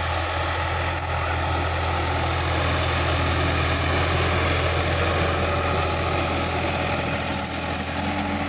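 Sonalika Supreme DI-50 RX tractor's diesel engine running steadily as the tractor drives along, a constant low drone that grows a little louder as it draws near.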